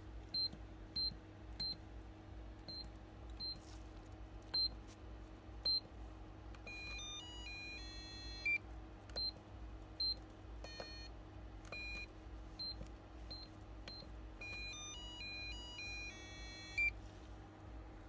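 Videx VX800N access-control keypad's buzzer giving a short high beep at each key press as a code is keyed in. Twice, the keypad plays a quick run of beeps at several stepped pitches.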